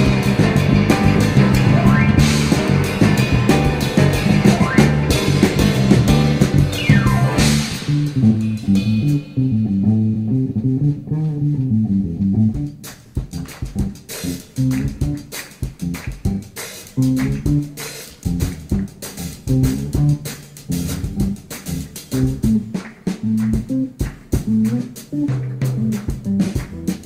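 Background music with bass guitar, guitar and drums. About eight seconds in the full band drops away, leaving a bass line and a beat, and the rhythm picks up again a few seconds later.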